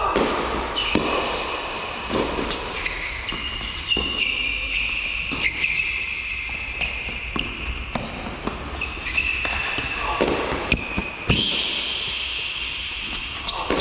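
Tennis rally on an indoor court: repeated sharp knocks of racket strikes and ball bounces, with high squeaks of tennis shoes skidding on the court surface between shots.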